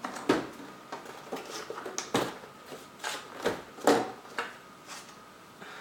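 Irregular clatter and rustling of motherboard-box packaging and accessory cables being handled and sorted through, with several sharp knocks, the loudest about two and four seconds in.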